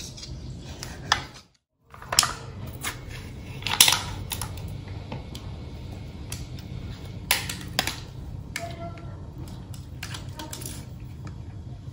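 Irregular clicks and knocks of varying loudness over a steady low hum, with a brief drop to silence about a second and a half in.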